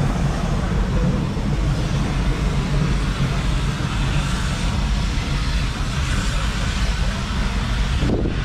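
1948 Field Marshall Series 2 single-cylinder two-stroke diesel tractor engine idling with a steady low, rapid thudding.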